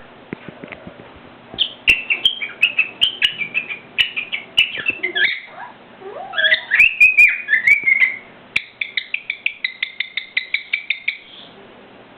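Cockatiel whistling and chirping: bursts of rapid high chirps, a run of warbling whistled glides, then a long string of quick, evenly repeated chirps near the end.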